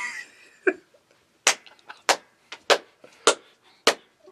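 A laugh trailing off, then a run of about six sharp slaps, evenly spaced a little under twice a second with fainter ones between, imitating bodies clapping together during sex.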